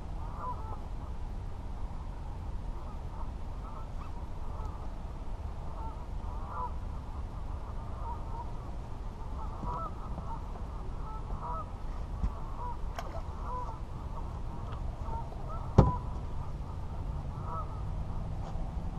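Geese honking over and over, short calls through the whole stretch, over a low steady rumble. A single sharp knock sounds about three-quarters of the way through.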